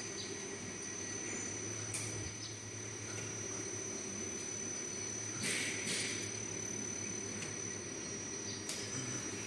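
Automatic flatbread production line running: a steady motor and conveyor hum with a thin, constant high-pitched whine. A few brief noisy bursts, at about two seconds, five and a half seconds and near the end, come from the machinery.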